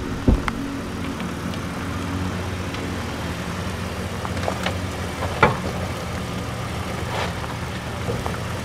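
2022 Nissan Frontier Pro-4X's 3.8-litre V6 running steadily at low revs as the truck crawls over a dirt off-road course. There is a sharp knock about a third of a second in and another about five and a half seconds in.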